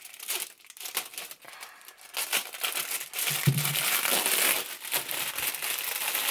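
Clear plastic wrapping crinkling and rustling as it is pulled off a padded cubing bag, in scattered crackles at first, then more continuous from about two seconds in. A brief low thump comes about halfway through.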